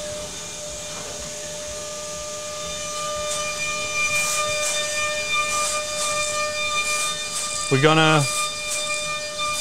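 DATRON M8 Cube CNC mill cutting a metal block: a steady high-pitched spindle whine over the hiss of coolant spray and cutting. The hiss gets louder about three seconds in. A brief voice is heard near the end.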